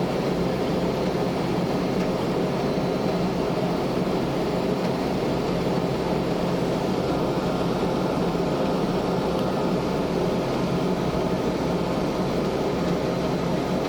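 Combine harvester running steadily: a constant, even machine drone with a low hum.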